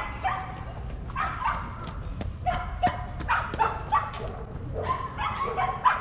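Small dog yapping over and over in short, high-pitched calls that come in clusters.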